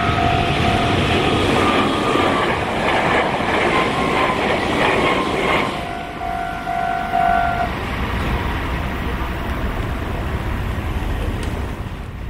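Japanese railway level crossing's electronic warning bell ringing while a Meitetsu Tokoname Line train passes. For about four seconds the train's running noise, with a falling whine, drowns the bell. The bell sounds again briefly and stops about eight seconds in.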